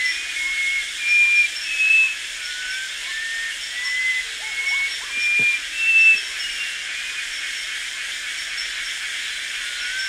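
Rainforest dawn ambience: a dense, steady insect chorus hiss, over which a bird gives a run of short whistled notes, each pitched a little higher or lower than the last. The whistles are loudest about a second in, at two seconds, and again around five and six seconds. Faint, quick high ticks repeat in the background.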